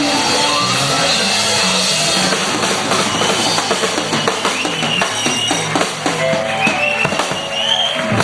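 Live blues-rock band playing, the drum kit to the fore with a rapid run of drum hits from about three seconds in, over sustained electric guitar and bass notes.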